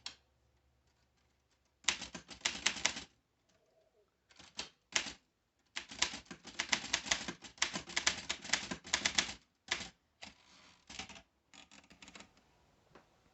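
Aztec 600 (Rheinmetall-built) manual portable typewriter being typed on: runs of rapid, sharp key strikes in several bursts with short pauses between them.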